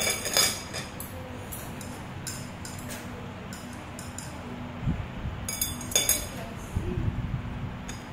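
A spoon and chopsticks clinking and tapping against a ceramic bowl and plate as a child eats: a cluster of light clinks at the start and another a little past halfway.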